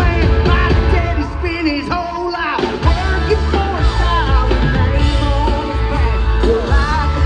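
Live country-rock band playing loudly, heard from the crowd: a male singer over acoustic and electric guitars, bass and drums.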